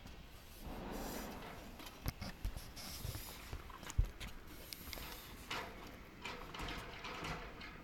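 Handling noise: scattered light knocks and clicks with rustling, with one sharper knock about four seconds in.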